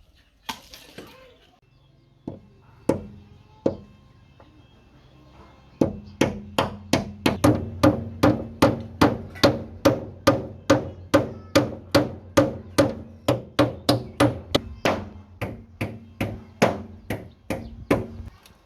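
A few single knocks, then a long steady run of hand-tool blows, about two to three a second, each with a short ringing hum, as the bird hut is built. The run stops near the end.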